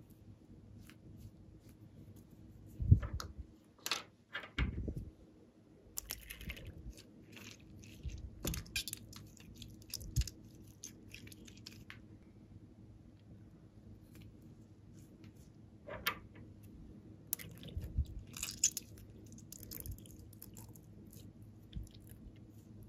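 Slime and a water-bead mesh stress ball being squeezed and pressed by hand, giving irregular wet crackles, pops and clicks. The sharpest comes about three seconds in, and there is a busier run of crackling near the end.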